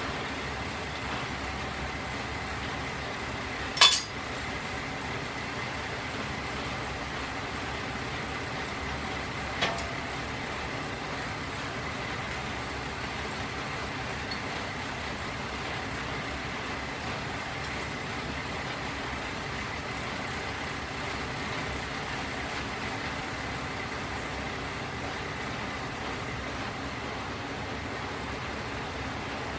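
Diesel railcars idling steadily while the coupling between two cars is worked by hand. A single sharp metallic clank comes about four seconds in, and a lighter clink near ten seconds.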